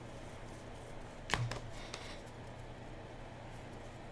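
Trading cards being handled, with one sharp tap of a card about a second in, over a low steady hum.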